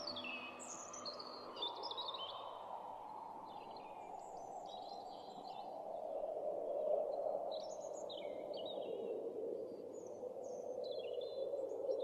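Small birds chirping in short, quick calls over a steady wash of sea waves. The waves swell about halfway through and again near the end.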